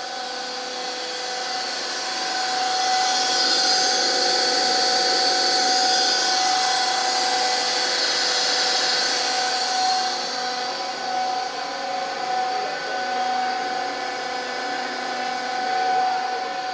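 Paul O. Abbe RB 135 ribbon blender's electric drive motor running steadily: a constant machine whine made of several steady tones, with a fan hiss that is loudest between about three and ten seconds in.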